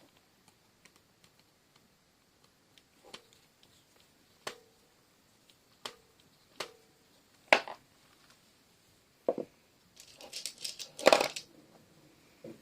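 Hands working on a Furby's plastic body and its screw ring: separate sharp plastic clicks and knocks, about one every second or so, then a busier burst of rattling and scraping about ten seconds in, the loudest part.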